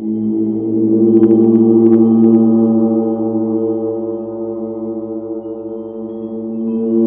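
Large gongs played with soft felt mallets: a sustained, low humming wash of many overlapping tones. It swells about a second in and again near the end, with a few faint high ticks early in the first swell.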